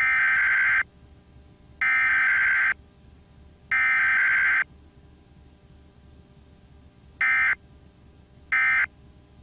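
Emergency Alert System SAME digital data bursts. Three header bursts of just under a second each, about a second apart, are followed after a pause by two short end-of-message bursts.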